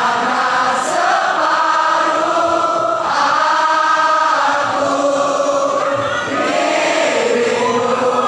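Large concert crowd singing along together, many voices holding long sung notes over the band's music.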